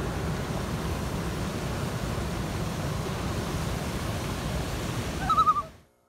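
Steady rush of river water pouring through rapids and over a waterfall, with wind buffeting the microphone. Near the end a short high warbling chirp, then the sound fades out.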